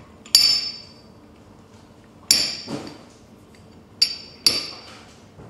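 Hardened steel gearbox parts clinking together as the first/second selector slider with reverse teeth is fitted onto the hub on the pinion shaft of a Quaife sequential gear kit: four sharp metallic clinks, each with a brief ring, the last two about half a second apart.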